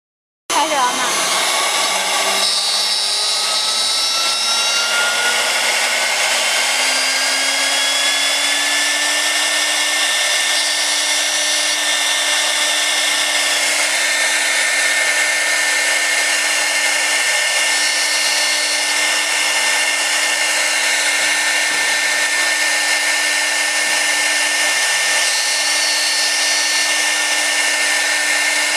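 CNC router spindle spinning up with a rising whine that levels off about nine seconds in, then running at a steady high whine over a hiss as the bit cuts acrylic sheet.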